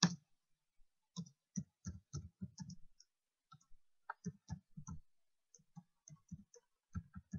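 Typing on a computer keyboard: a string of short, irregular keystroke clicks, with one sharper, louder click at the very start.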